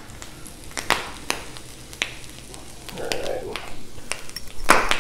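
A few scattered light clicks and knocks, then near the end a fork starts beating an egg in a small glass bowl, metal clinking rapidly against the glass.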